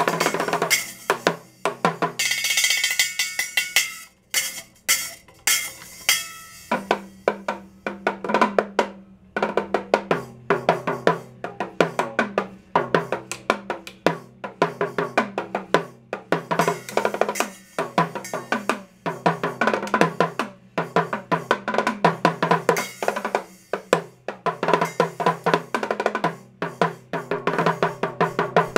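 Mini drum kit played with sticks in a fast drum solo: rapid strokes and rolls on small toms, with a cymbal ringing about two seconds in.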